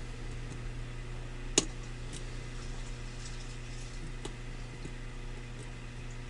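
Small metallic clicks of a lock pick working the pins of a pin-tumbler lock under tension, with one sharper click about one and a half seconds in and a few faint ticks after, over a steady low hum.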